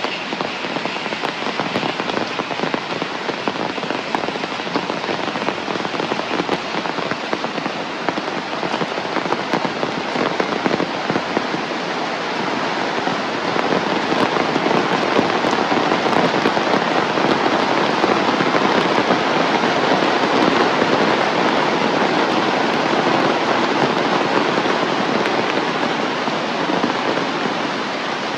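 Heavy rain pouring down in a dense, steady hiss, growing heavier about halfway through and easing slightly near the end.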